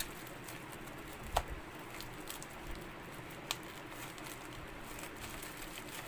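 Bubble wrap rustling and crinkling as wrapped ink bottles are handled, with faint scattered clicks and two sharper clicks, about a second and a half in and three and a half seconds in.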